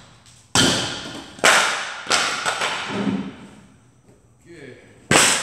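Loud blows of a hammer on wooden framing, knocking boards loose: three bangs in quick succession in the first couple of seconds and one more near the end, each echoing off the garage walls.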